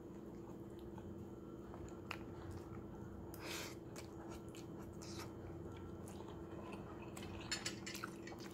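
Faint chewing and mouth sounds of a person eating a forkful of fettuccine, with scattered small clicks, over a steady low hum.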